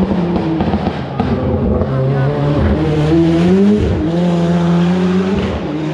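Rally car engine revving hard as the car accelerates past and away, its pitch climbing and then dropping several times with the gear changes.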